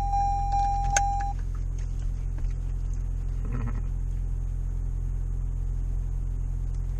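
Car seatbelt-reminder chime, a steady high beeping tone that stops just after a click about a second in, followed by the low, steady hum of the car's cabin.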